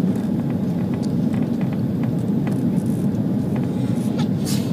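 Steady cabin rumble inside an Airbus A340-300 on final approach with flaps extended: engine and airflow noise heard through the cabin. A few faint clicks come near the end.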